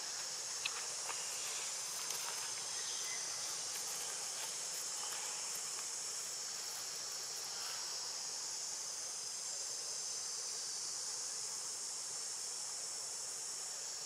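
Steady high-pitched chorus of insects buzzing, with a sharp click about a second in and another at about two seconds.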